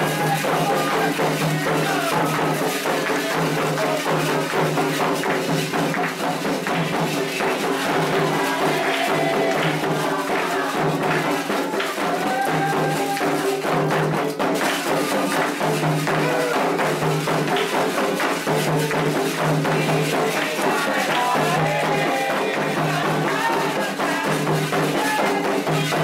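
Candomblé ritual music: atabaque hand drums and jingling percussion keep up a steady rhythm, with voices singing a chant over them.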